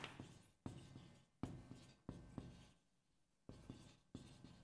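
Marker pen writing on a whiteboard: about seven short, faint strokes with brief pauses between them.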